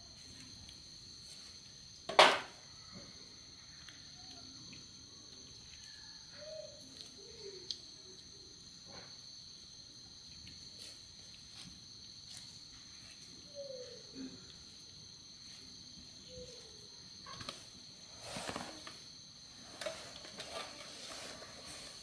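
Steady high-pitched drone of an insect chorus, with one sharp click about two seconds in, a few faint short calls scattered through, and some rustling near the end.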